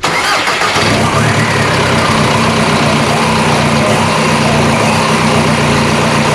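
2002 Volkswagen Jetta TDI's 1.9-litre four-cylinder turbodiesel starting up abruptly and settling into a steady idle. This is its first run after a radiator replacement, with the cooling system not yet fully bled.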